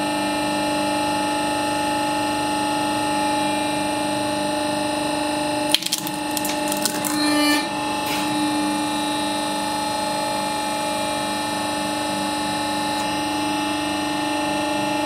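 Hydraulic press running with a steady hum. About six seconds in, the small round food item under the ram cracks with a sharp snap, followed by about two seconds of crackling as it is crushed flat.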